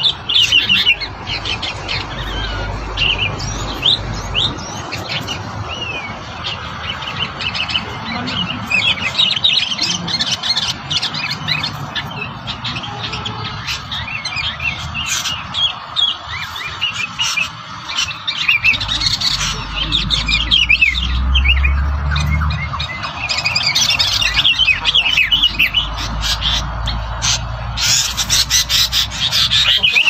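Songbirds singing, a rapid and continuous stream of overlapping high chirps and trills.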